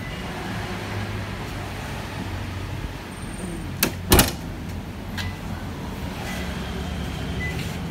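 Toyota Innova Zenix Hybrid's tailgate shut about four seconds in: a sharp click, then a heavier thump that rings briefly, over a steady low hum.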